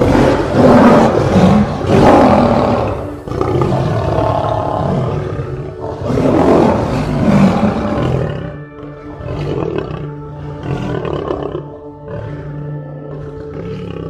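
Lion roaring and growling in a series of long, rough calls, loudest in the first eight seconds and fainter after. Background music with sustained tones runs underneath.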